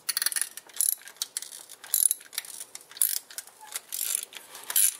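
Hand ratchet clicking in short runs about once a second as it is swung back and forth on a spark plug socket, loosening a spark plug from the VW 2.0L engine.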